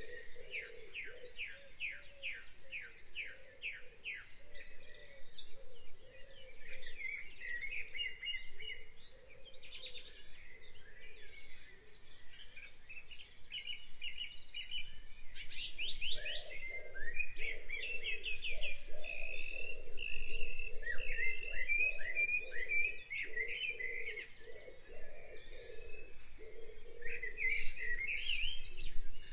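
Several songbirds singing at once in spring, with overlapping chirps and trills. It opens with a quick run of repeated notes, and a dense chorus of song phrases runs on throughout.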